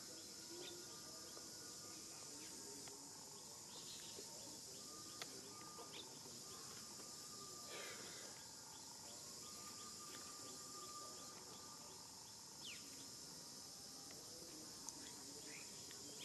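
Faint outdoor ambience: a steady high-pitched insect drone with scattered short bird chirps.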